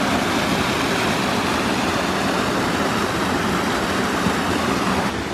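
Steady rushing of a small waterfall and rocky woodland stream.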